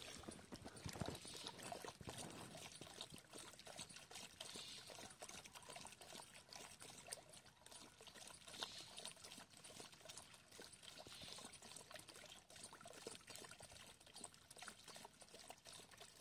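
Faint water pouring from a garden hose, trickling and splashing into a muddy puddle, with small splashy clicks as a dog laps and bites at the stream.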